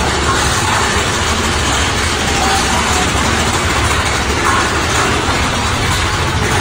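Big Thunder Mountain Railroad mine-train roller coaster running along its track, heard from a seat on board: a steady, loud, deep rumble.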